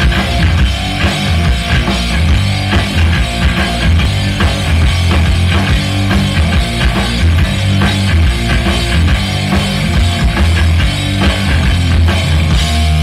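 Live rock band playing: electric guitar, electric bass and a drum kit, with steady, dense drum hits over a heavy bass line.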